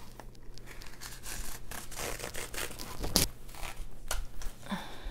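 Rustling and crinkling of a pile of ribbons, lace trims and rickrack, some in plastic packaging, as hands sort through it, with a sharp snap about three seconds in and a lighter click a second later.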